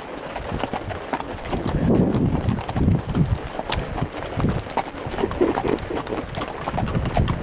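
Horses walking on a sandy trail, hooves clopping in an uneven rhythm.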